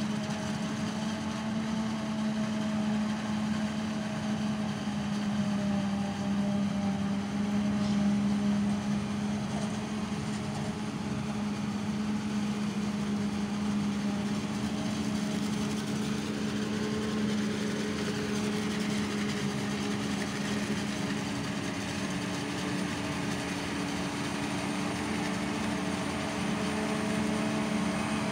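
Self-propelled forage harvester and tractor diesel engines running steadily as maize is chopped and blown into the trailer, a constant drone with a strong low hum.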